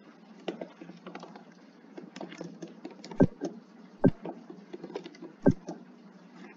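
Computer keyboard keys clicking in an irregular, slow rhythm as someone types, with three much louder, deeper key strikes about three, four and five and a half seconds in.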